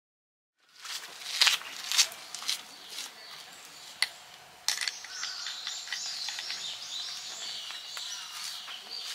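Outdoor ambience with birds chirping, which becomes steady about halfway through, and a few sharp knocks in the first half. The sound begins only after about half a second of silence.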